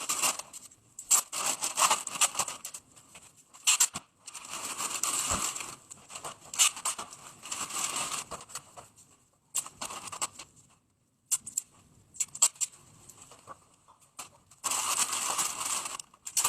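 Masking plastic and tape being handled, crinkling, crackling and tearing in irregular bursts with short pauses, as the ceiling fan is wrapped.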